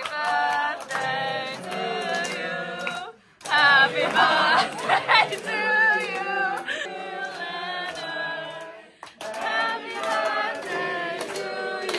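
A group of young people singing together in unison, phrase by phrase with short breaks between, while others clap along in time.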